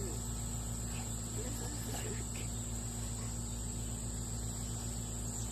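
Insects trilling in one steady, unbroken high-pitched note, over a low steady hum.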